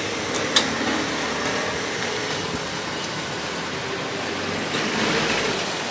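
Metal tongs click twice against a wire grill in the first second, over a steady rushing background noise.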